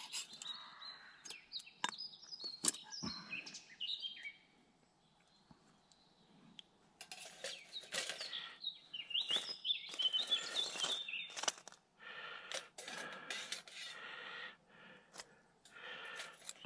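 Songbirds singing in short warbling phrases, with scattered light metallic clinks as the billycan is lifted off the steel Firebox stove with tongs and the charcoal inside is handled.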